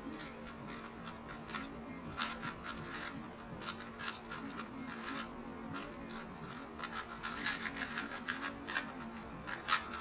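3x3 speed cube being turned quickly by hand: irregular plastic clicks and clacks as the layers snap round, coming faster in the second half.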